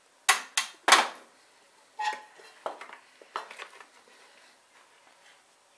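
Metal parts clanking and clicking as they are handled on a riding mower's engine: three sharp knocks in the first second, then a few lighter clicks.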